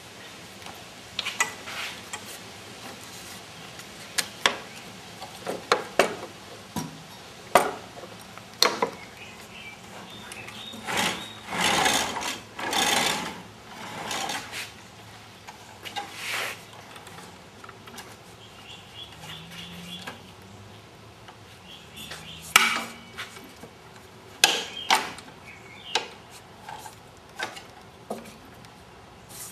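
Irregular knocks and scraping or rubbing noises, with a few longer scrapes in the middle; no motor is running.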